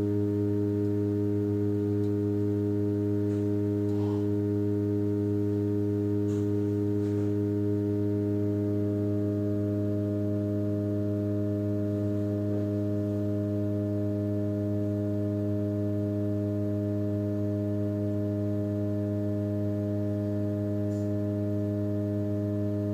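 A ship's steady low hum: one deep tone with a stack of overtones, held without change throughout. A few faint ticks sound above it.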